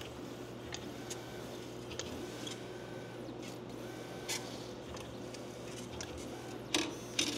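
Neoden YY1 pick-and-place machine running: a steady low hum, short faint motor whines as the head moves, and several sharp clicks, the loudest near the end.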